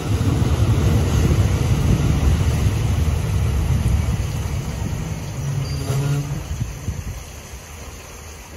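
Low rumble and wind of a moving train, heard from on board, fading away about seven seconds in as the train slows to a stop at the station.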